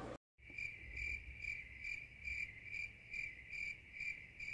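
Cricket chirping: a steady high trill pulsing about two and a half times a second, starting abruptly just after a brief silence.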